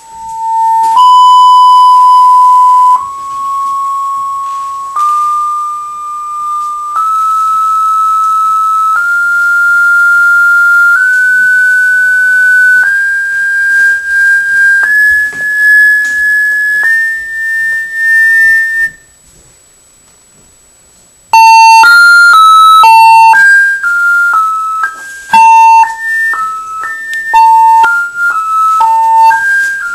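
A loudspeaker at the end of a Rubens' tube, driven by a laptop, plays a single steady test tone that steps up in pitch every two seconds, from about 900 to about 1700 hertz. It stops for about two seconds, then a quick tune of short electronic notes follows, jumping between pitches in the same range.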